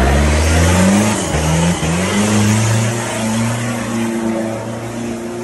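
Off-road 4x4 engine revving hard in repeated surges as it works to climb out of a mud pit, then settling to a steadier note and fading.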